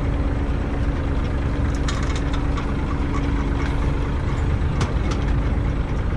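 Small fishing boat's engine running steadily, a low rumble with a constant hum, with a few sharp clicks from deck gear.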